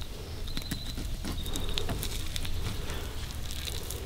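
A knife cutting meat from a wild turkey's breast, with irregular small crackles and rustling from the feathers and skin, over a low steady rumble.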